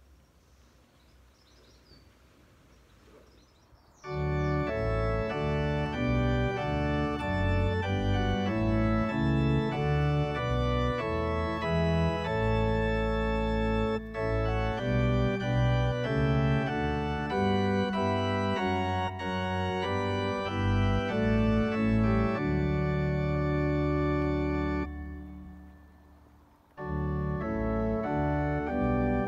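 Near silence for about four seconds, then organ music starts: slow, sustained full chords. Near the end it fades away, stops briefly, and starts again.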